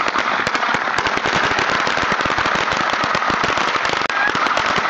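A 1000-count string of firecrackers going off in a rapid, unbroken run of sharp bangs, many a second.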